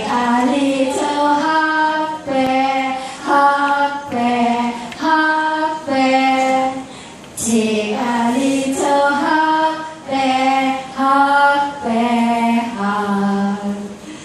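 Women's voices singing a simple tune into a microphone, a short phrase of held notes stepping up and down, repeated with brief breaks and ending on a long low note near the end.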